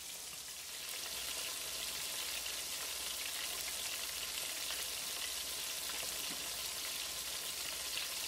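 Floured chicken breast pieces shallow-frying in about a quarter inch of vegetable oil in a cast iron skillet: a steady sizzle, a little louder from about a second in.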